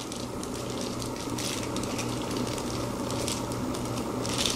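Clear plastic packaging crinkling in short rustles as a stainless steel spoon is worked out of its bag, the clearest rustle just before the end, over a steady background hiss and low hum.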